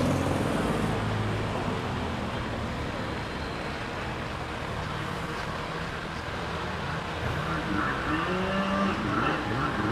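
A motor vehicle's engine running, a low steady hum loudest near the start, over a constant rush of outdoor noise.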